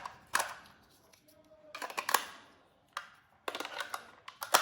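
Batteries being fitted into a toy gun's plastic battery compartment: several bursts of sharp clicks and clatter, with short quiet gaps between.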